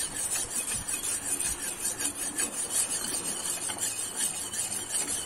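Knife blade scraping along the skin of a Spanish mackerel in repeated short rasping strokes, as the fish is scaled and cleaned.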